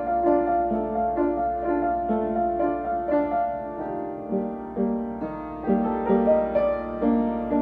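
A piano played note by note in a steady flowing pattern, with a low hum underneath.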